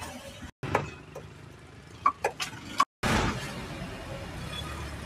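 Busy street ambience with a steady low rumble of traffic, broken by a few sharp knocks near the middle. The sound cuts out completely twice for a moment.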